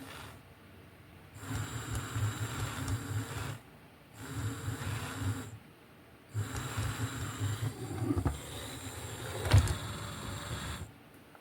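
Small electric motors of a kit-built remote-control car whirring in three bursts, each started and stopped from the remote, the last the longest. A sharp click about nine and a half seconds in.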